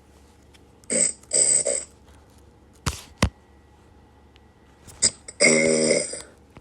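A person snoring: two short snores about a second in, then a longer, louder snore near the end. Two sharp clicks fall between them.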